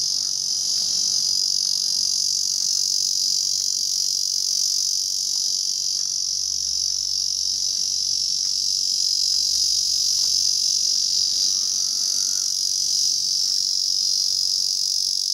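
A cicada calling with a continuous, steady high-pitched buzz that holds at an even level throughout.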